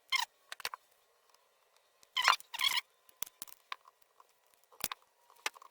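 Small metal clicks and scrapes as an E-clip is worked onto the hinge pin of an IWI Galil ACE brace. There are about eight short, sharp sounds, irregularly spaced, and the loudest pair comes about two seconds in.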